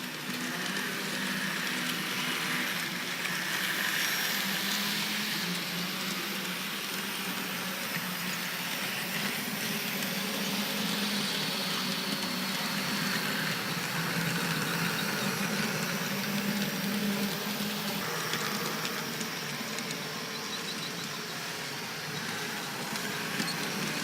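H0-scale model tram running on its track: a small electric motor's steady whir with a hum that drifts slightly in pitch, over wheel and rail noise.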